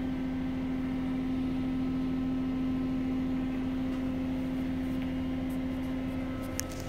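Steady hum of a running diesel generator, an Onan 7500 quiet diesel set powering the truck's studio, with one steady low tone; a single short click near the end.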